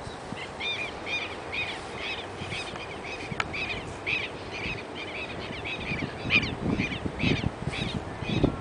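A bird calling over and over, a short harsh call about twice a second. Low thuds come in and grow louder in the last few seconds.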